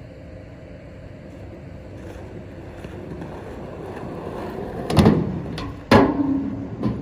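Skateboard wheels rolling on rough asphalt, growing louder as the board approaches, then a sharp wooden clack about five seconds in and a harder clack about a second later as the board pops off an obstacle and lands, and the wheels roll on.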